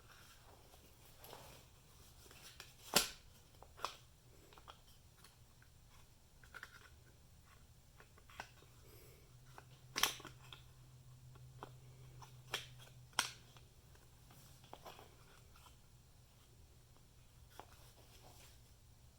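Scattered clicks and light taps of small plastic and metal parts being handled as a black plastic cover is fitted onto a truck door latch assembly. The sharpest clicks come about three seconds and ten seconds in.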